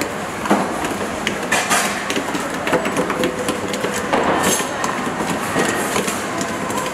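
Irregular knocks and clatter of plastic containers being handled, as thick barbecue paste is tipped and scraped out of a plastic tub onto raw pork chops, over steady commercial-kitchen background noise.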